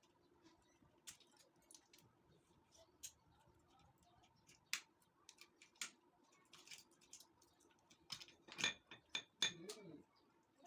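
Faint, scattered clicks and clinks of hand work on small parts, with a quick run of louder clicks about eight to ten seconds in.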